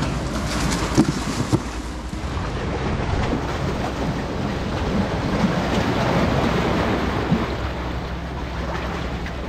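Sea waves washing and splashing against the concrete tetrapods of a breakwater, with wind buffeting the microphone. Two short knocks sound about a second in.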